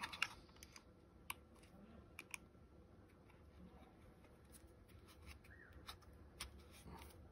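Near silence with a few faint, sharp metallic clicks and taps: a hex key being fitted to and turned in the blade pivot nut of a cordless electric pruning shears.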